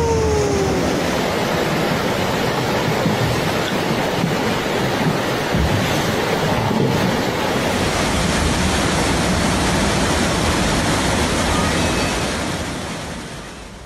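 Fast-flowing floodwater rushing as a steady, loud wash of water noise, fading out near the end.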